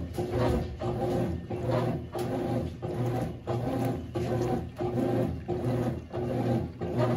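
Consul 12 kg CWS12 top-loading washing machine agitating its load: the motor hums in even strokes about three-quarters of a second long, each broken by a brief dip as the drive reverses.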